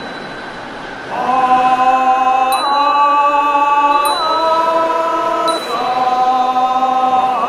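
Music of sustained, choir-like held chords, entering about a second in and shifting to a new chord every second or two, in the style of a goeika Buddhist chant. A small bell rings about three times over the chords, with a hissing wind sound effect underneath.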